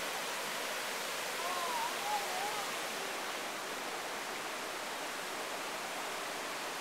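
River rapids rushing over boulders: a steady, even rush of water. Faint distant voices come through briefly between about one and a half and two and a half seconds in.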